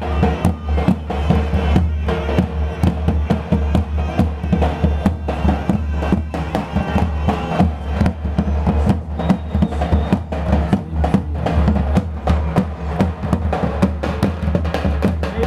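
Davul drums and zurna pipes playing the traditional oil-wrestling music: a fast, steady drumbeat under a sustained reedy melody.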